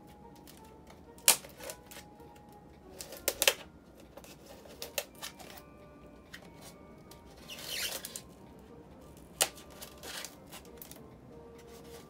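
A blade cutting the packing tape along the seam of a polystyrene foam box: scattered sharp clicks and ticks, with a longer scratching drag about seven and a half seconds in. Faint background music underneath.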